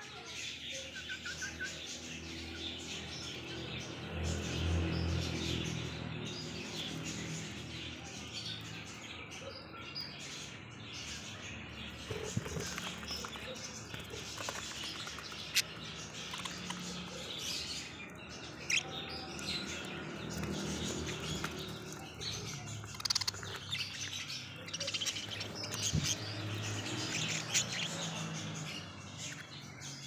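A group of caged budgerigars chirping and warbling in a continuous, busy chatter, with a few sharper, louder chirps standing out. A low rumble runs briefly about four to six seconds in.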